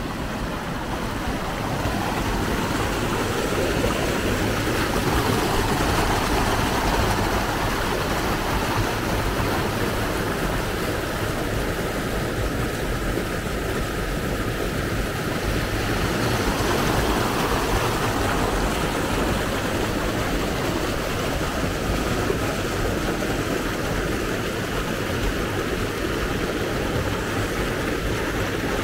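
Creek water rushing and churning over a small drop into whitewater, a steady rush.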